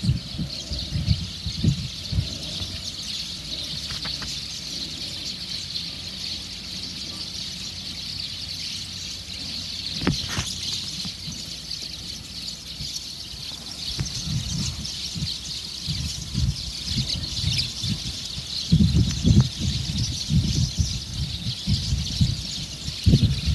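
A large flock of swallows twittering together, a dense, steady chatter of many high calls. Bursts of low rumble on the microphone come and go, strongest near the end.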